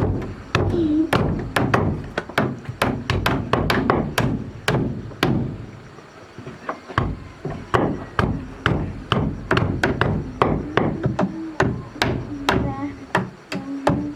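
Repeated blows of a tool on wood, about two to three a second, with a short lull about halfway through, as in hammering or chopping timber.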